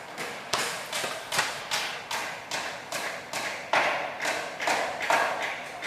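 A rhythmic series of sharp knocks, about two and a half a second, each dying away quickly.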